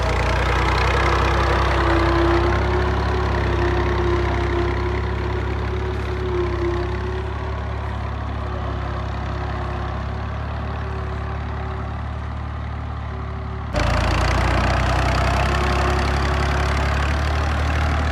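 Tractor diesel engine running steadily while pulling a seed drill for sowing wheat, with a steady hum over the low engine note. About fourteen seconds in, the sound jumps suddenly and the engine carries on a little louder.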